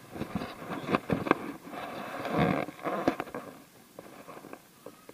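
Close rustling and scraping of dog fur brushing the microphone, with scattered sharp clicks and nibbling sounds as one dog works its muzzle through another dog's coat. Loudest about a second in and again around two and a half seconds, dying down near the end.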